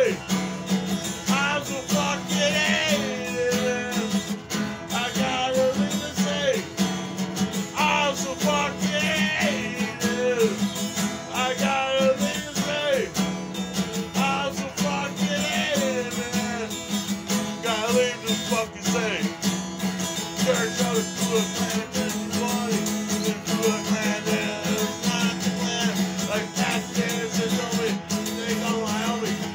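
A man singing while he plays an acoustic guitar, a steady chord under a wavering voice.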